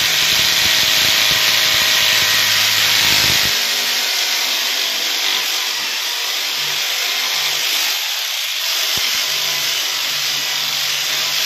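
Electric hammer drill boring into a tiled floor for a toilet pan's mounting screws, running continuously. A low rattle in the drilling eases off about three and a half seconds in.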